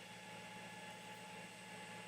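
Faint steady hiss with a few thin, steady hum tones: quiet room tone with no distinct event.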